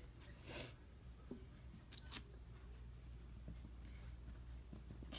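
Quiet room with a low steady hum, a short hiss about half a second in and a sharp click about two seconds in, with a few faint ticks between.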